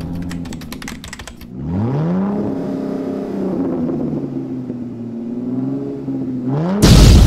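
Intro sound effects: rapid keyboard-typing clicks for about the first second and a half, then a car engine revving up and holding at steady revs. It revs again just before a loud boom near the end.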